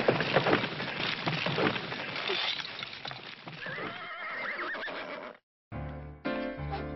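Dense clatter of horse hooves that fades, then a horse whinnying with a wavering pitch about four seconds in. After a short gap, keyboard music starts near the end.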